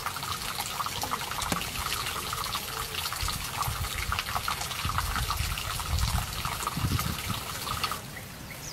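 Hot spring water trickling and bubbling, a dense crackle of small splashes and bursting bubbles, which stops abruptly about eight seconds in.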